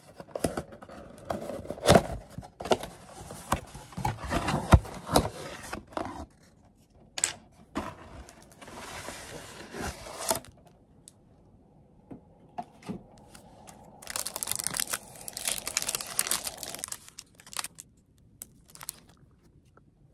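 Cardboard box opened and handled by hand, with a string of sharp clicks and scrapes from its flaps over the first six seconds. Later a brown paper cake liner crinkles and tears as it is peeled down from a slice of chocolate cake.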